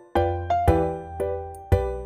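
Background music: a melody of bright struck notes over a bass line, about two notes a second, each ringing and fading.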